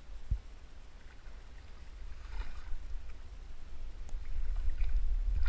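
Low wind rumble on the microphone, growing louder toward the end, with light water splashing from a hooked trout being drawn through the shallows to the net.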